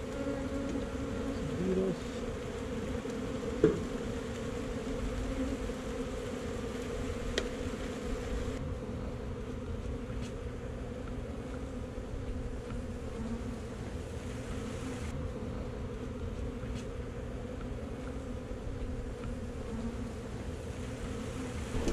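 Honey bees buzzing in a steady hum around an opened hive and nuc box. A few sharp knocks come through it, the loudest about four seconds in.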